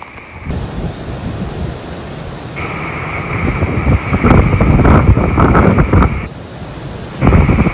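Heavy storm surf crashing on a rocky shore, mixed with strong wind buffeting the microphone. The sound is loudest from about four seconds in and shifts abruptly several times between shots.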